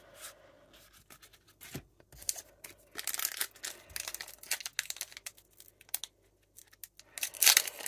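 Foil Pokémon card booster pack crinkled and torn open by hand: a run of short rustles and rips, loudest near the end.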